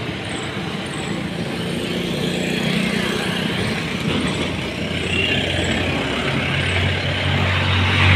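Motor vehicle travelling along a road: steady engine and road noise with wind, the low engine sound growing louder near the end.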